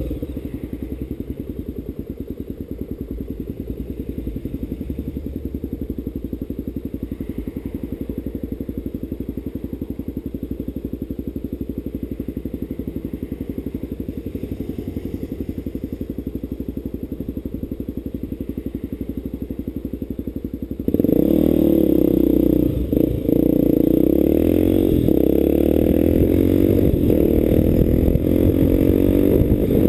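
Motorcycle engine running steadily while riding. About two-thirds of the way through it becomes suddenly louder, its pitch rising and falling with the throttle.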